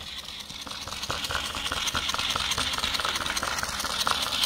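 Small motor-driven homemade walking robot running, its motor whirring under a fast, rattling clatter of its plastic parts as it steps, getting gradually louder as it comes closer.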